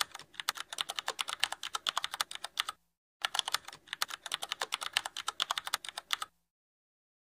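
Rapid typing on a keyboard, quick clicks in two runs separated by a short pause, stopping about a second before the end.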